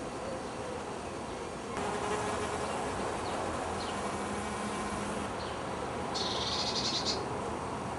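An insect chirping: one burst of rapid, high-pitched pulses lasting about a second, near the end. Under it is a steady hiss of outdoor background noise that steps up about two seconds in.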